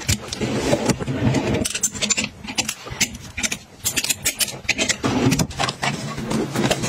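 White plastic clothes hangers clicking and clacking against each other and sliding along a closet rail as they are handled, with clothing fabric rustling.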